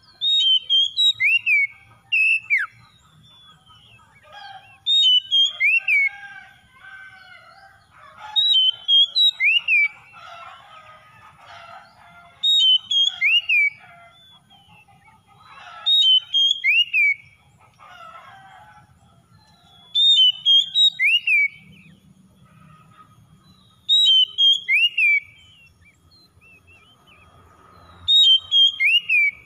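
Oriental magpie-robin singing. The same loud whistled phrase comes eight times, about every four seconds: a few short high notes, then a falling slurred whistle.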